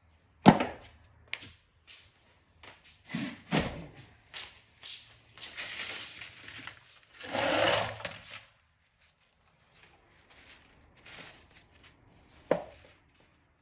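Small metal parts of an LS rocker-arm trunnion kit being handled while snap rings are fitted: scattered sharp clicks and taps, the loudest about half a second in and another near the end, with a short scraping, rubbing stretch in the middle.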